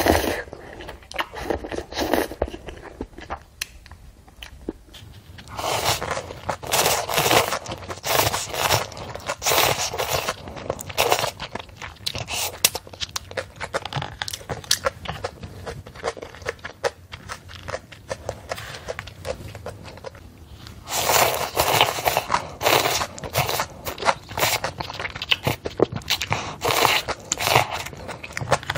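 Close-miked eating of yukgaejang cup noodles: wet slurps of noodles and chewing, in two busy spells, one a few seconds in and one past the middle, with quieter chewing between.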